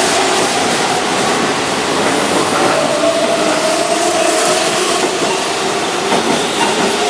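Keihan 9000 series electric train running past, its VVVF inverter motors whining in several tones that slowly shift in pitch over the steady rumble and clatter of wheels on the rails.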